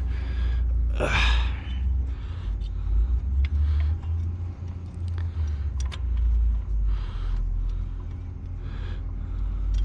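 A bolt being turned out by hand in an engine bay, with a few light metallic clicks, over a steady low rumble.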